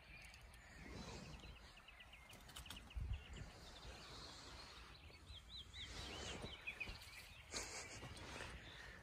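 Faint songbird chirping in quick runs of repeated notes, twice, with soft rustling of leaves and handling noise as the phone moves through undergrowth, the loudest bumps about three seconds in and near the end.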